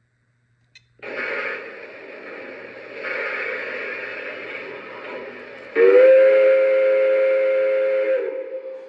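Digital sound system of a Lionel TMCC Rio Grande Mikado O-gauge model steam locomotive: steam hiss comes in about a second in and swells again a couple of seconds later, then the chime steam whistle blows once for about two and a half seconds, the loudest sound.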